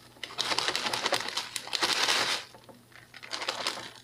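Plastic bag of sweetened shredded coconut crinkling and rustling as the flakes are measured out. There is a long spell of rapid crackling, loudest near the middle, then a shorter spell near the end.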